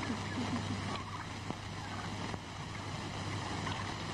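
Steady low hum and hiss of a worn old film soundtrack, with a couple of faint clicks near the middle.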